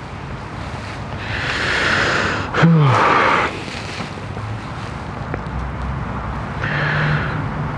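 Wind buffeting the microphone, with noisy swells that rise and fall, and a brief low murmur of a man's voice about two and a half seconds in.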